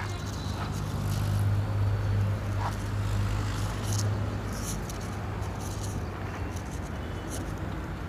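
A vehicle engine idling with a steady low hum that swells a little between about one and four seconds in, with a few faint clicks over it.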